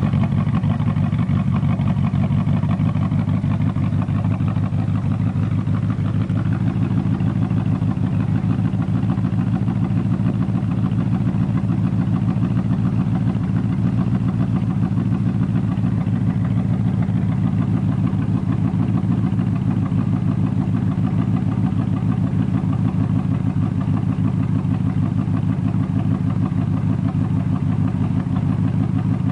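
Ford SVT Lightning pickup's V8 engine, fitted with aftermarket camshafts, idling steadily.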